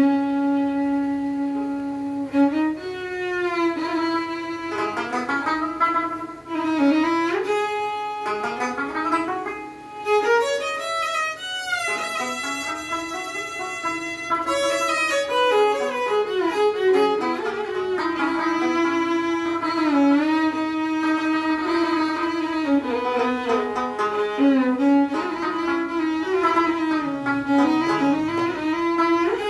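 Instrumental introduction played on violin with tenor banjo and harmonium: the violin carries a sliding, ornamented melody, with a quick climb to a high passage about ten seconds in.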